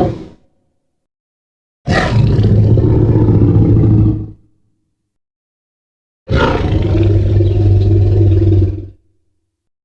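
Monster roar sound effect mixing Godzilla's 2014 roar with the Jurassic Park tyrannosaurus roar, heard twice, each roar about two and a half seconds long. Each starts with a harsh, high-pitched onset over a deep, steady low rumble and then fades out. The end of a previous roar trails off at the very start.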